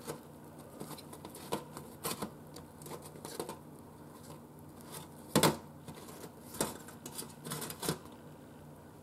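Hands flipping biscuit-dough donuts in an air fryer basket: irregular soft taps and knocks as the donuts are picked up and set back down against the basket, the sharpest about five seconds in, over a faint steady hum.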